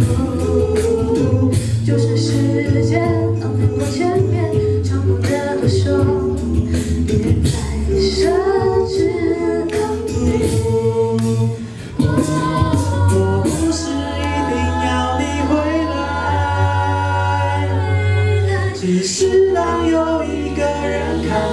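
A cappella choir singing a pop arrangement in several voice parts over a sustained low bass line, with sharp percussive hits throughout. The voices drop out for a moment about twelve seconds in.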